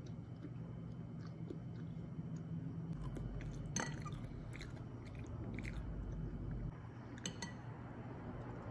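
Someone chewing pan-fried dumplings, with a few small crisp clicks between about three and seven and a half seconds in, over a faint steady low hum.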